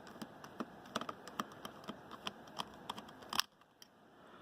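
Screwdriver backing out a small screw from a microphone's circuit board: faint, irregular little clicks and ticks, with one louder click a little after three seconds in, then a brief near silence.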